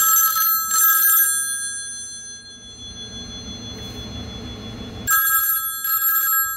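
Western Electric 500 rotary telephone's twin brass gongs ringing: two rings about four seconds apart, each a rapid clanging, with the gongs ringing on briefly after the first.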